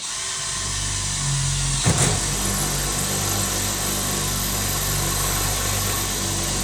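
A motor starts abruptly and runs at a steady speed with a constant hum, with one short knock about two seconds in.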